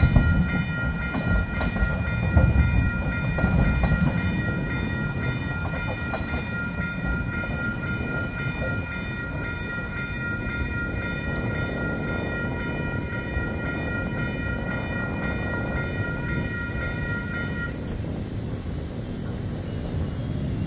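Level-crossing warning bells ring steadily while a red light-rail train rumbles past, the rumble loudest in the first few seconds and then easing. The bells cut off suddenly near the end as the crossing gates start to rise, the sign that the crossing is clearing.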